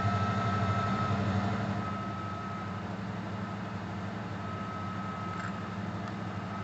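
Ford Ranger 2.9's V6 engine idling steadily, freshly started and still cold, with a faint steady high whine alongside. It gets slightly quieter about two seconds in.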